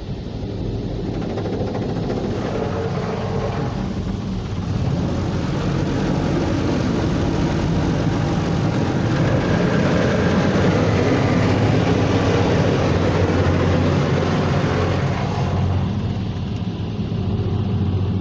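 Ryko Softgloss MAXX automatic car wash running: a steady rush of water spray blasting the car over a low, even pump hum, building over the first few seconds.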